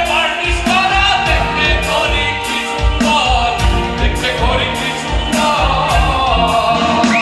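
A live rock band: a man singing into a microphone over guitar and keyboard, with drums keeping a steady beat.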